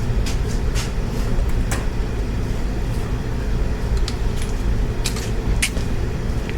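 A steady low rumble under a few scattered light clicks and taps, from small parts and hand tools being handled while a motorcycle is dismantled.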